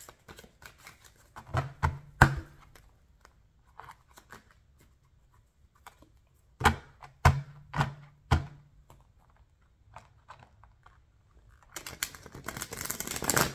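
A deck of tarot cards being handled: scattered sharp card taps, a few about two seconds in and four more around seven to eight seconds, then near the end a rapid crackling run as the cards are flicked and riffled through.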